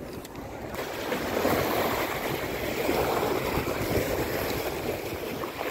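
Sea waves washing in over shore rocks, a steady rushing surf that swells up about a second in.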